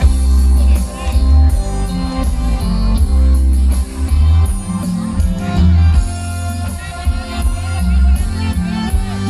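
Loud luk thung band music with a heavy bass line and a steady beat.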